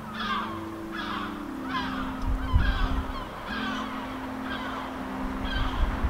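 Seagulls calling: a steady run of harsh, falling calls, about one every 0.7 seconds. A low steady hum runs underneath.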